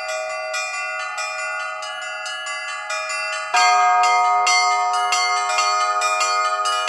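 Russian Orthodox church bells being rung in a quick, continuous chime of small bells. About halfway through a deeper, heavier bell is struck, and the ringing becomes louder.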